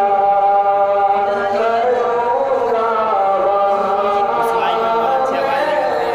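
A man singing a naat, an Islamic devotional song, unaccompanied into a handheld microphone, holding long drawn-out notes with ornamented slides in pitch.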